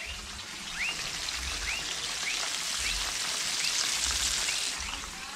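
Flour-dredged bangamary fish sizzling in a pan of hot frying oil as pieces are laid in. The sizzle swells about half a second in and eases off near the end. A high chirp repeats about twice a second in the background.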